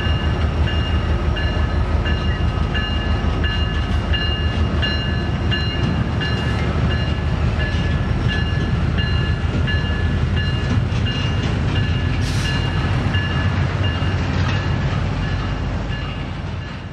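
Freight diesel locomotives hauling a double-stack container train past: a steady heavy rumble of engines and wheels on rail, with a ringing tone repeating about twice a second. The sound fades out at the very end.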